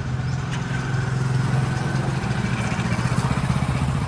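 Motorcycle engine running close by as the motorcycle rides past, loud and steady, swelling to its loudest in the middle.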